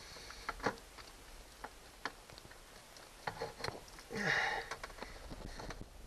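Light, scattered clicks and knocks of hands handling the metal parts and hoses of an outboard kicker motor's steering linkage, with a short sniff about four seconds in.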